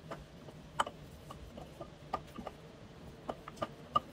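Wooden rolling pin rolling out thin phyllo dough on a countertop: a series of irregular sharp clicks and taps as the pin and hands work the sheet.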